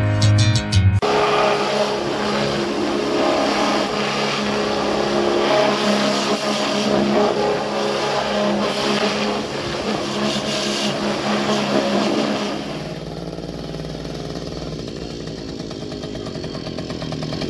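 A pressure washer running, a steady hum under the hiss of the water jet. About twelve seconds in it gives way to a small two-stroke Romet Komar moped engine running.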